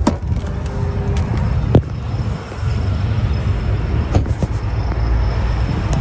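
A car door's interior handle clicks the latch open, then a steady low outdoor rumble follows, with a few sharp clicks.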